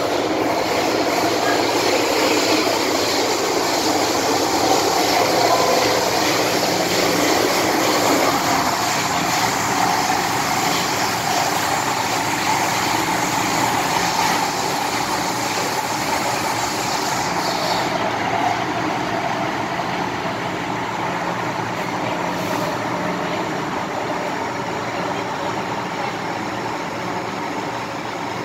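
Hong Kong MTR M-Train running through a tunnel, heard from inside the car: a steady rumble and rush from the wheels, track and traction equipment. The sound changes abruptly about 8 seconds in, and the high hiss drops away about 18 seconds in.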